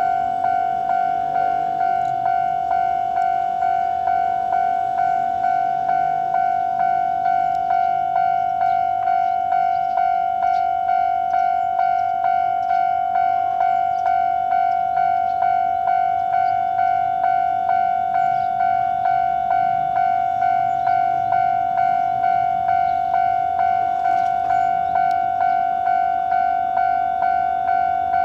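Japanese railway level crossing's electronic warning bell ringing steadily, a repeated clanging tone about one and a half strikes a second, with the faint low rumble of a passing train beneath it.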